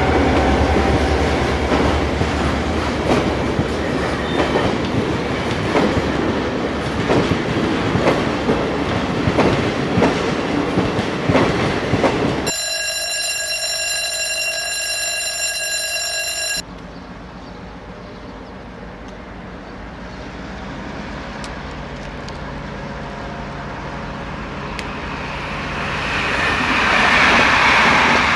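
Loaded car-carrier freight wagons rolling past with a steady run of wheel knocks over rail joints. About halfway through, an SNCB class 52 diesel locomotive sounds a steady multi-tone horn for about four seconds that cuts off sharply. After it, a lower diesel locomotive engine note grows louder as the locomotives approach.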